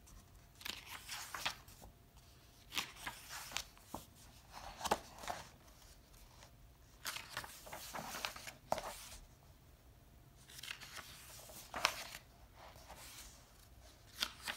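Pages of a paperback coloring book being turned by hand: a series of short papery swishes and rustles at irregular intervals as the sheets are lifted and laid flat.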